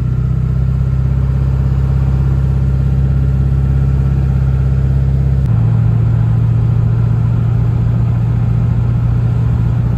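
An engine runs steadily and loudly with a low hum; about halfway through its tone changes as the deepest part drops away.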